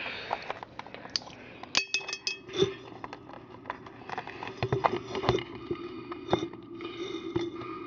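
Small clinks and taps of glass and other objects being handled, with one ringing glass clink about two seconds in, over a faint steady hum.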